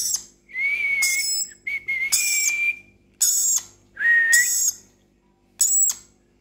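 A pet parrot giving a series of about six short whistled calls, some of them holding a steady high note.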